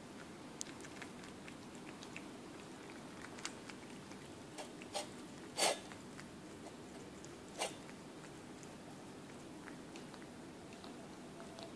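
Domestic cat eating wet food and dry kibble from a stainless steel bowl: soft, quick mouth clicks of chewing and licking throughout, with a few louder crunches, the loudest about halfway through.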